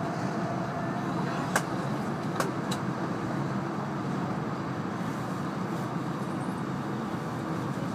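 Steady running noise of an E2-series Shinkansen heard inside the passenger car, with three sharp clicks between about one and a half and three seconds in.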